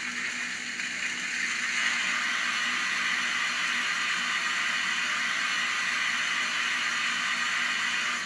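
Steam hiss from the LokSound sound decoder in a stationary N scale Lemke BR 02 DE steam locomotive, played through its tiny Knowles speaker. It swells up over the first couple of seconds, holds steady, then stops abruptly.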